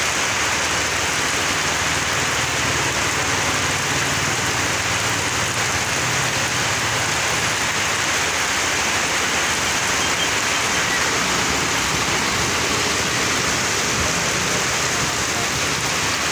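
Heavy rain pouring onto a wet asphalt road, a steady even hiss.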